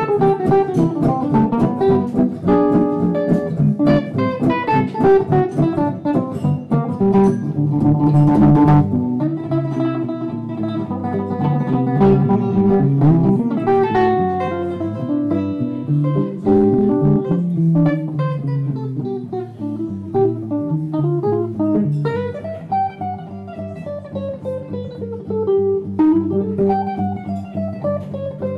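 Two acoustic guitars playing a blues together, a steady stream of picked notes and chords.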